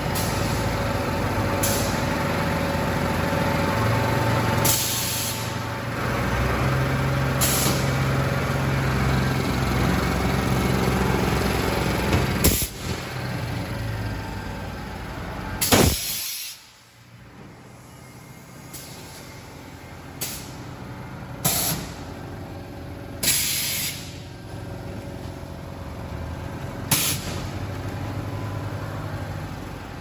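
Silage bagging and press machine running steadily: conveyor and electric motors, with short sharp hisses of released compressed air every few seconds. About halfway through, the sound drops suddenly to a quieter run of the machine, and the air hisses carry on.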